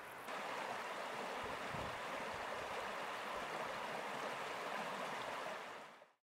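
Shallow mountain stream running over stones, a steady rush of water that comes in abruptly just after the start and fades out near the end.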